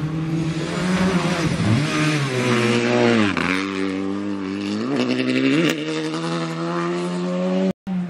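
Renault Clio rally car's engine revving hard through a dirt corner. The revs drop sharply about three seconds in and climb back, with a brief dip shortly after, then hold high.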